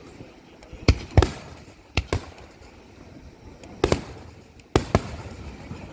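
Aerial firework shells bursting: about seven sharp bangs, several in quick pairs, each dying away briefly.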